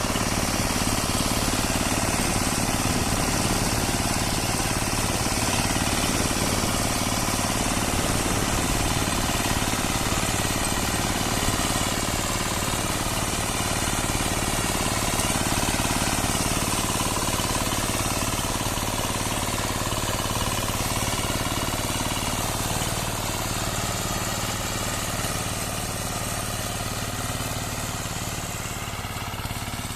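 Zubr walk-behind tractor's engine running steadily under load as it rotary-tills ploughed soil. It grows gradually quieter over the last several seconds.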